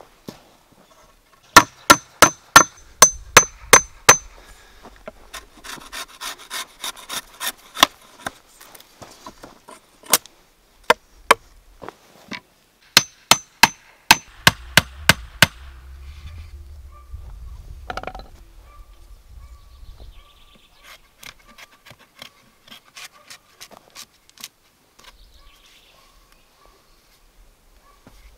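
Hammer driving nails through a wooden pole rail into a post: two runs of sharp, ringing strikes at about three a second, with a stretch of quicker, softer blows between them.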